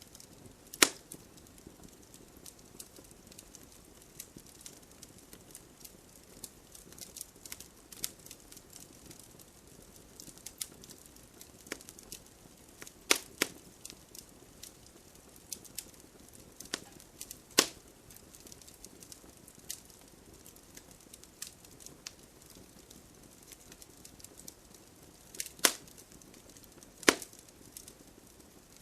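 Wood fire crackling in a fireplace: a faint steady hiss with scattered small crackles and a handful of sharp, loud pops.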